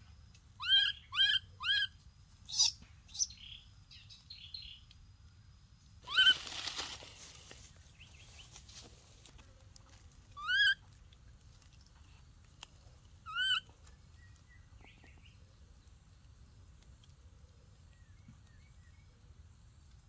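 A baby macaque giving short, high, upward-sweeping cries: three in quick succession, then single ones now and then. A burst of dry-leaf rustling comes about six seconds in.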